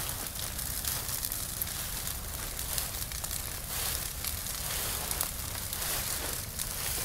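Large wood fire burning, with many sharp crackles and pops over a steady low drone.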